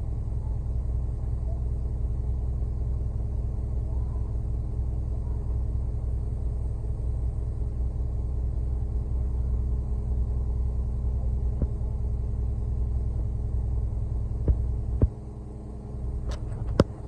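Concrete mixer truck's diesel engine running steadily with a low rumble. A few sharp clicks come near the end, and the level drops suddenly about fifteen seconds in.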